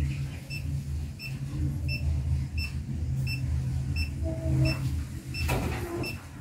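Short high electronic beeps repeating evenly, about three every two seconds, from a handheld long-range treasure locator, over a steady low rumble.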